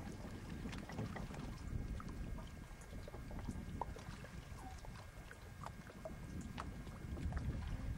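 Water lapping and dripping around a pontoon boat on the water, with many small splashes and clicks over a steady low rumble of wind on the microphone.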